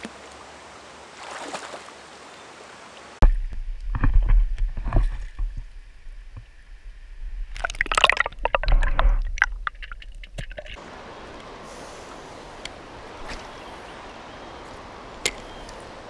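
Steady rush of a shallow river. About three seconds in, the camera goes under the water with a hand holding a fish, and the sound turns to muffled underwater splashing with low rumbling and knocks. About eleven seconds in the camera comes back up and the river's steady rush returns.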